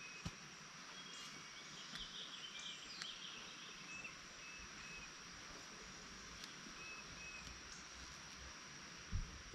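Quiet outdoor field ambience: scattered short bird chirps over a steady high insect hum. Two brief low bumps on the microphone, a small one just after the start and a louder one near the end.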